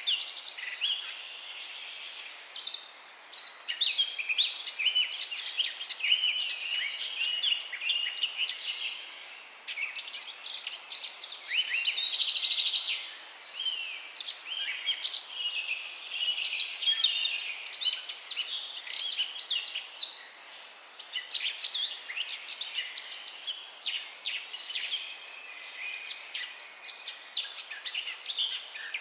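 A chorus of songbirds chirping and trilling over one another, with quick, high notes following close together.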